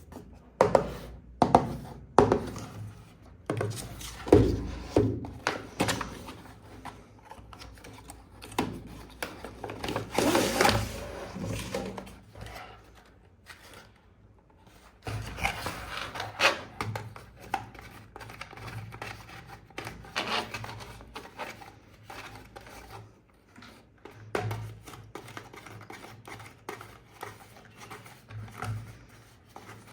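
Unboxing handling noises: irregular knocks, taps and rubbing of boxes and packaging, with a longer rustle about ten seconds in.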